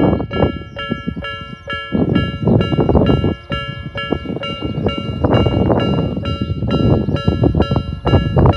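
Japanese railway level-crossing alarm, a newly renewed Nikko-type electronic bell, ringing a repeated metallic ding in a steady, fast rhythm. A loud low rumble swells and fades beneath it several times.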